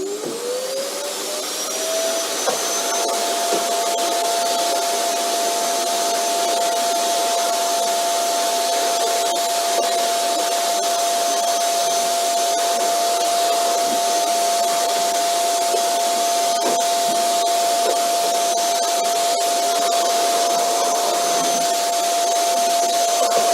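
Vacuum cleaner motor spinning up to speed, its whine rising over the first two seconds, then running steadily with a high whine over a rush of air.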